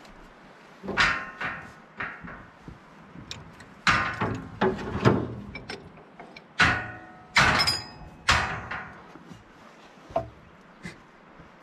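A run of about nine loud metallic clanks and knocks, unevenly spaced, several with a short ringing tail. The rod and piston of a hydraulic lift cylinder are being worked back into the steel barrel.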